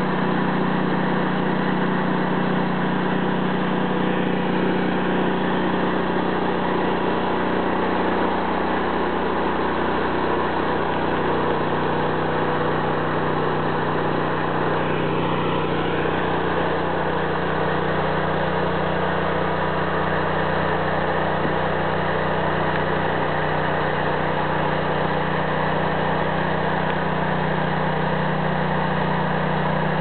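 Wood-Mizer portable bandsaw mill running steadily under engine power, its saw head travelling along a paulownia log.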